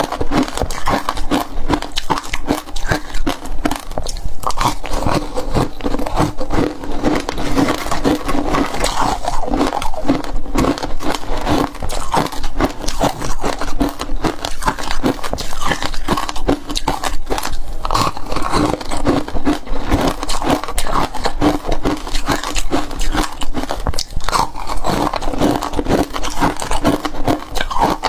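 Frozen ice being bitten and chewed close to a clip-on microphone, a dense crackly crunching throughout. The ice chunk also scrapes against the glass bowl as it is dipped and scooped through passion fruit pulp.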